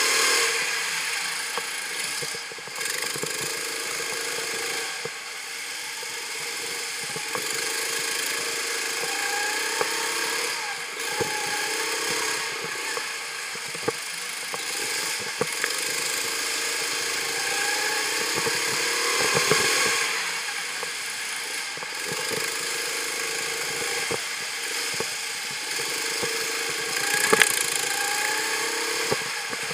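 Go-kart engine heard from on board, its pitch rising as it revs up and falling away again, over and over through the laps, with scattered sharp knocks.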